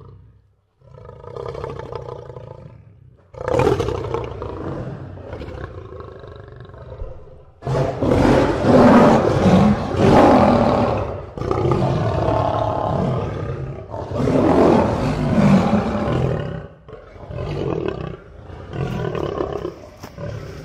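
Big cat roaring: a series of long, loud roars, one after another.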